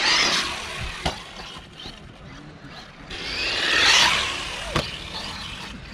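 Electric motor of a 1/16-scale Xinlehong Q901 RC monster truck whining as it accelerates across sand, in two bursts, each followed by a sharp knock.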